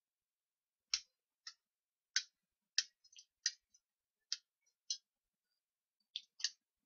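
About ten short, sharp clicks and taps, irregularly spaced, from the spray gun's cap and propellant can being handled and taken apart.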